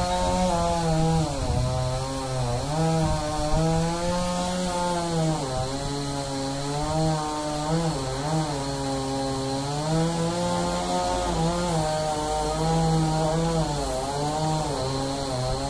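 Two-stroke chainsaw running at high revs, its pitch repeatedly sagging and recovering as it is worked through wood.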